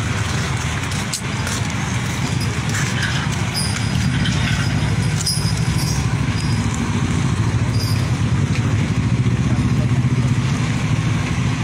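Motor vehicle engines running close by in road traffic, a steady low rumble.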